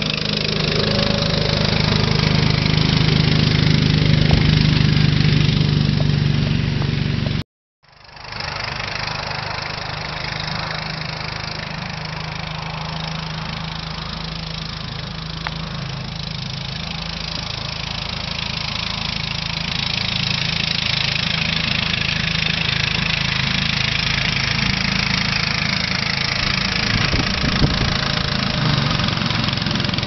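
Small engine of a 7¼-inch gauge miniature railway locomotive running steadily as it pushes a snow plough along the track. The sound breaks off for about half a second some seven seconds in, then carries on.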